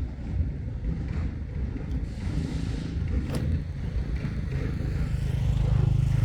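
Steady low rumble of a running vehicle engine, a little louder near the end, with a single sharp click about three seconds in.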